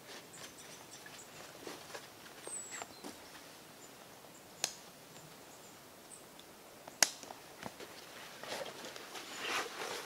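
Rustling of a roll-top backpack being closed and fastened, with two sharp clicks a couple of seconds apart as its plastic buckles snap shut. Heavier rustling near the end as the pack is swung onto the shoulders.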